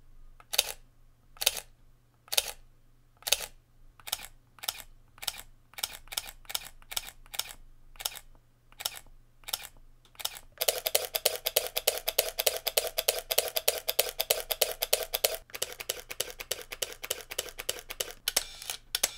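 Leica M digital rangefinder shutters firing. First come single shots, among them an M10's, each a sharp click a bit under a second apart. About halfway through, rapid continuous-drive bursts of clicks start, the first run over a steady whine. A Leica M240 then fires continuously in a faster clicking run without the whine, and spaced single clicks return near the end.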